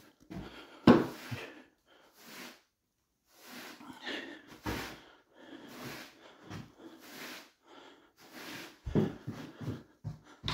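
Hand brush sweeping sawdust off freshly sanded wooden floorboards: a quick series of short, scratchy strokes, about one every half second to second, the loudest about a second in.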